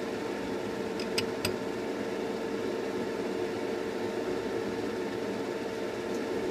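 Hobby spray booth extraction fan and airbrush compressor running together: a steady whirring hum over a rush of air. A few short clicks come about a second in.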